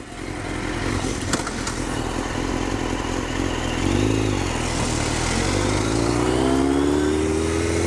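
Suzuki GSX-R 1000 sport bike's inline-four engine under way, heard over wind rush on the rider's camera. The revs rise and fall briefly about four seconds in, then climb steadily as the bike accelerates.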